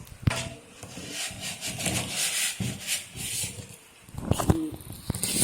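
Cardboard box and packing rubbing and scraping as a PC case is unpacked, with a few sharp knocks about four and a half seconds in.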